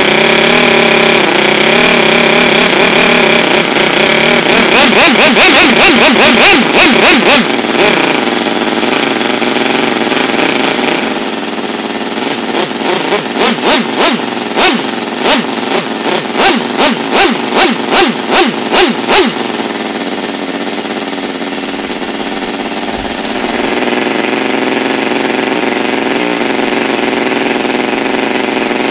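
Small single-rotor O.S. Wankel glow-fuel (nitro) rotary engine running: a steady note at first, revving up a few seconds in, then surging up and down about twice a second for several seconds before settling to a steadier, lower run.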